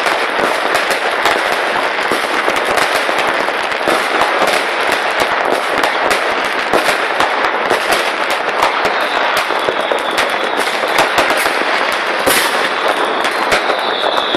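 Many New Year's fireworks and firecrackers going off at once: a dense, unbroken crackle of bangs. A thin whistle joins in the second half.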